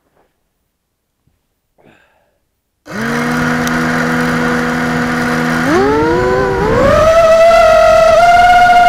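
Blade Vortex 250 Pro FPV quadcopter's brushless motors and propellers starting up suddenly about three seconds in, spinning at a steady idle whine, then whining higher in two steps as the throttle comes up and the quad lifts off. Heard from the quad's own onboard camera.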